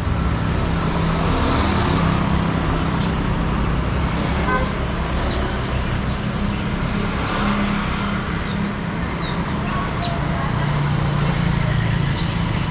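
Steady hum of road traffic, with caged songbirds giving many short, high chirps throughout.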